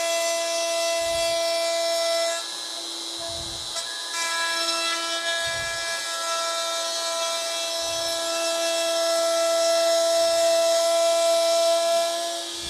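DeWalt router running with a steady high whine as it cuts the J-slot into the wooden wall of a yarn bowl held in a jig. It drops briefly quieter about two and a half seconds in, then runs on. A dull low thump comes roughly every two seconds.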